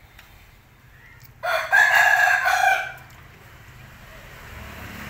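A rooster crows once, about a second and a half in, loud and lasting about a second and a half.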